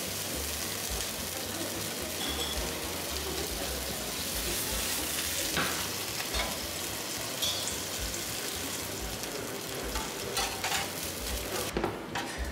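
Food frying in a hot pan on an induction hob: a steady sizzle, with a few short knocks of the pan and utensils.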